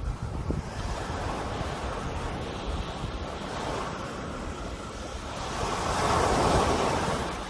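Sea waves washing onto a shore. One wave swells louder in the second half and ebbs away near the end, over a steady low rumble of wind on the microphone.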